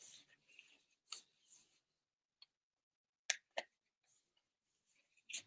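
Fingers and nails picking and tearing at the end seal of an Apple Watch's white cardboard box: a string of short scrapes and rustles with quiet gaps, and two sharp clicks a little past three seconds in.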